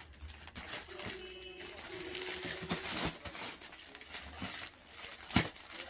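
Plastic packaging crinkling and rustling as wrapped suit pieces are handled, with one sharp click about five seconds in.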